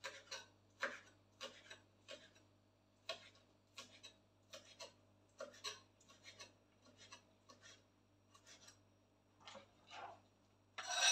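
Kitchen knife chopping fresh green herbs on a wooden cutting board: light, irregular taps of the blade on the wood, about two a second.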